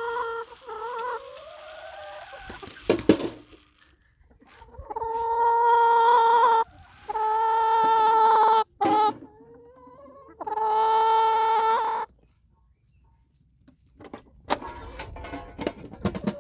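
Chickens calling: four long, level, drawn-out calls of about a second and a half each, with a few sharp knocks and clicks between them.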